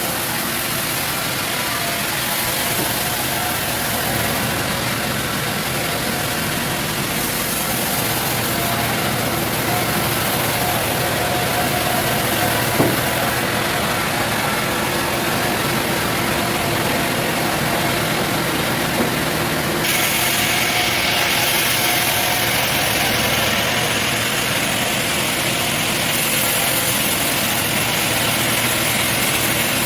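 Sawmill machinery running steadily, with an engine-like drone, its sound shifting abruptly a few times. A sharp knock comes about 13 seconds in and a smaller one about 19 seconds in.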